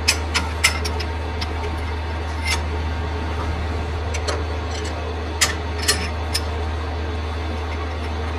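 Steady low hum of a running workshop machine, with sharp metallic clinks of metal tools or parts handled on a lathe. There are three clinks right at the start, one about two and a half seconds in, and three more between about five and six and a half seconds.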